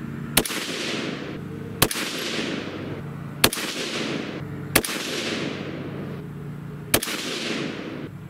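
Five rifle shots from a 6.5 Grendel AR-15, spaced about one and a half to two seconds apart, each followed by a long echo dying away.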